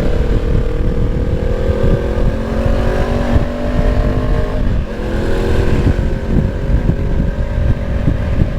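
Honda CB500X parallel-twin engine with an aftermarket exhaust, pulling steadily higher in one gear, then dropping in pitch about five seconds in as it shifts up and runs on evenly. Wind noise on the microphone rumbles underneath.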